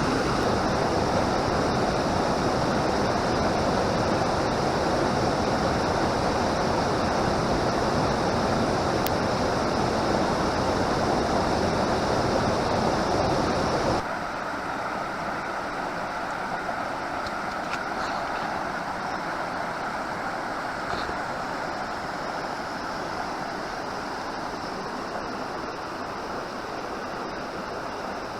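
Waterfall on a forest stream: a steady rush of falling water. About halfway through it drops suddenly to a quieter, thinner rush.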